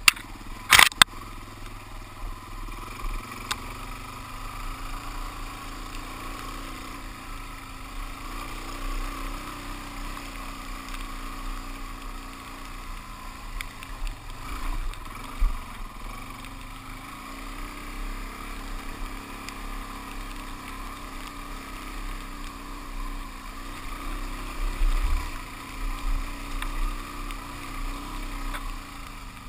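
Suzuki DR-Z400S single-cylinder four-stroke engine running steadily as the bike rides along a dirt trail, with a couple of sharp clicks about a second in and some low rumbling knocks around the middle and near the end.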